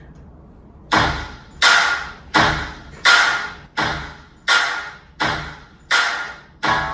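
The opening of a music track played through a car audio system's speakers and subwoofer: after a second of faint hiss, about nine sharp percussive hits fall evenly, roughly one every 0.7 seconds, each ringing out briefly.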